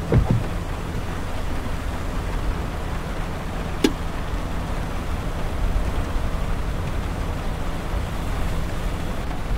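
A car driving on a wet highway in rain, heard from inside the cabin: steady road rumble and tyre hiss, with a windshield wiper sweeping across the glass at the start and a single sharp click about four seconds in.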